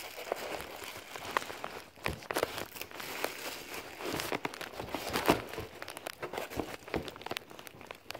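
Packaging crinkling and rustling, with irregular knocks and scrapes, as a part is worked out of a tightly packed cardboard box.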